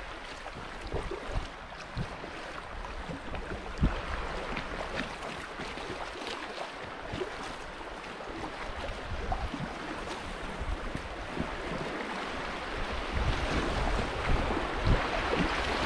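Rushing river water around a packraft on a fast riffle, with occasional paddle splashes and wind buffeting the microphone. The rush of water grows louder over the last few seconds.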